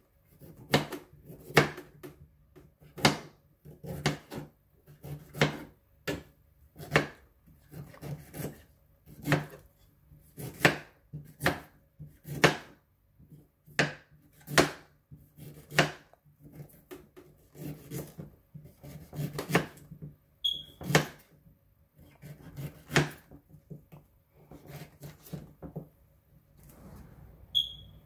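Kitchen knife chopping peeled ginger root on a plastic cutting board: a steady run of single sharp chops, a little over one a second, that stops about two seconds before the end.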